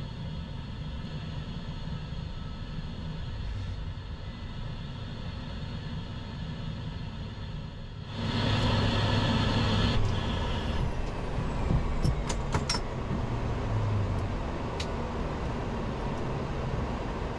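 The HondaJet's twin GE Honda HF120 turbofans running at taxi power, heard in the cockpit as a steady hum with a faint whine. About eight seconds in it becomes louder, with a higher whine, and a few sharp clicks follow a few seconds later.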